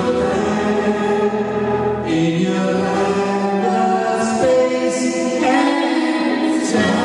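Live band music: several voices singing long held notes together in harmony, changing chord every second or two.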